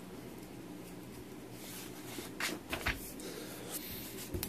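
Paper pages of a booklet rulebook being turned, a few short soft rustles a little past halfway and again near the end.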